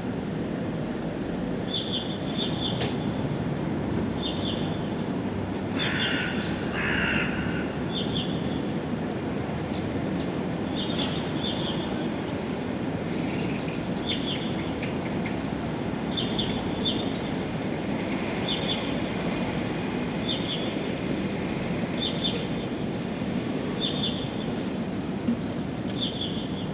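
A songbird repeating a short, high chirping phrase every second or two, over a steady low rumble of background noise. Around six seconds in, two louder, lower calls break in.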